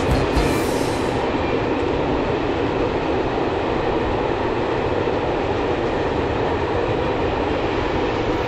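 Freight train of loaded open wagons rolling past at steady speed: a continuous rumble of wagon wheels on the rails.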